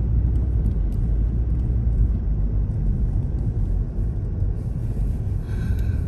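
Car driving on a road: a steady low rumble of engine and tyres, with a brief higher hiss and a faint thin tone near the end.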